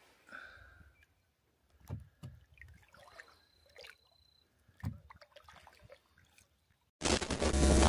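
Paddle strokes and water sloshing around a small dinghy, a few irregular dips and knocks. Near the end a much louder, dense burst of sound cuts in abruptly.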